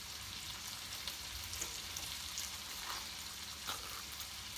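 A knife cutting around a whole avocado through its skin, with a few faint clicks about three seconds in, over a steady hiss.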